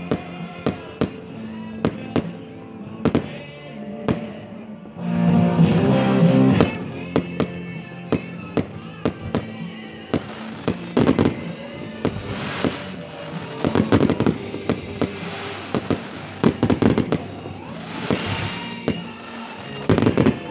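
Fireworks display: aerial shells bursting in a string of sharp bangs, coming in quick clusters in the second half, with music playing alongside.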